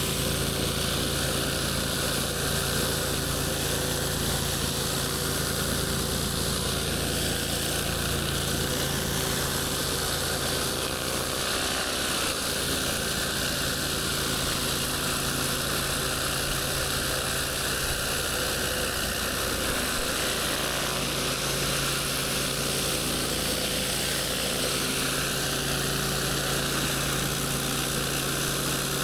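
Gas-engine pressure washer running steadily under load, with the even hiss of high-pressure water spraying on concrete.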